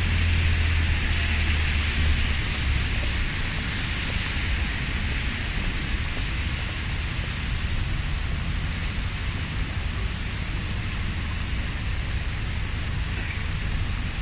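Steady rain falling, an even hiss with no breaks, with a low rumble underneath that is strongest in the first few seconds.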